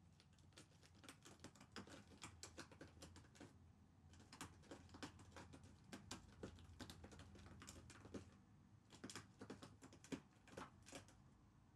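A cat chewing, heard as quick, crisp crunching clicks in three bursts with short pauses between them.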